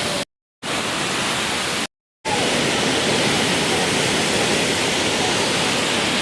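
Steady rush of falling water, an even hiss across the whole range, cut to dead silence twice for a moment near the start.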